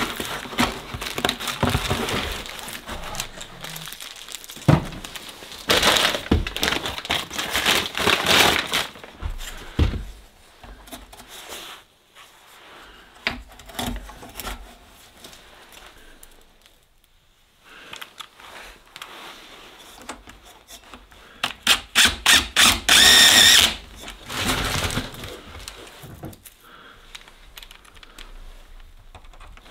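Intermittent knocks, clatter and crinkling from hands-on installation work, with quiet gaps, and a quick run of sharp taps about 22 seconds in.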